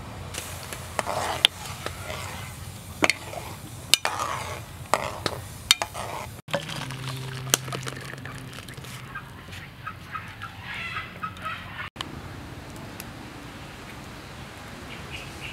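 A ladle clinks repeatedly against an aluminium pot and a bowl as dipping sauce is scooped out, then the sauce is poured into a bowl.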